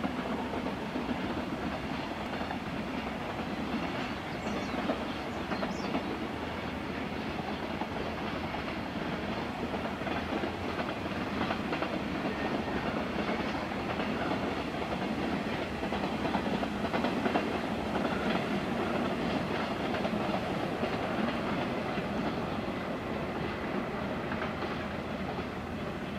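Two freight trains hauled by electric locomotives passing each other in opposite directions, a steady running noise of locomotives and wagons on the rails.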